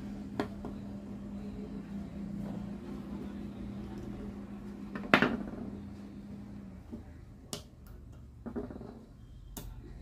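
Small clicks and taps of a metal contact strip being pressed into an opened plastic trigger switch from a demolition hammer, the loudest sharp click about five seconds in. A steady low hum runs underneath and stops about seven seconds in.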